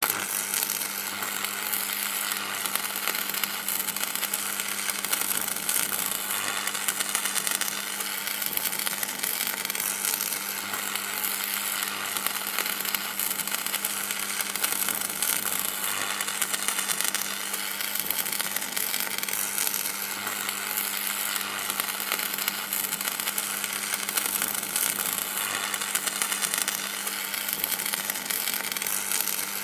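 Electrical buzz and crackle sound effect: a continuous sizzling crackle over a steady low mains-like hum.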